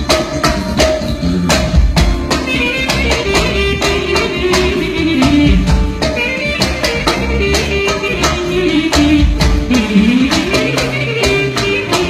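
Loud live band music: a drum kit keeps up a fast, steady beat of drum and cymbal strikes under a winding melody line.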